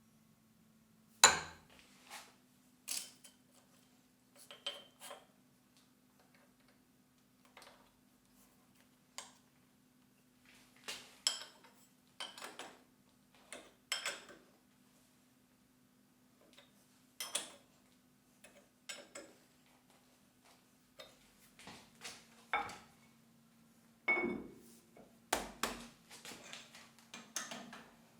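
Metal parts and tools being handled: irregular clinks and knocks of metal on metal, the loudest about a second in and several close together near the end, over a faint steady hum.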